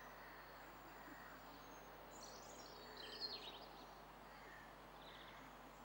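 Faint outdoor ambience, a low steady hiss, with a short run of high bird chirps a little after two seconds in.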